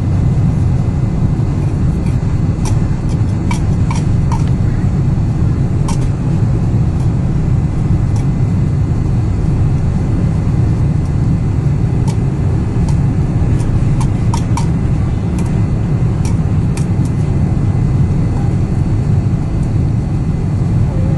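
Steady roar of a Boeing 747's engines and rushing air heard inside the passenger cabin on the landing approach, mostly a deep rumble. Light clicks come now and then, in a cluster a few seconds in and again about twelve to seventeen seconds in.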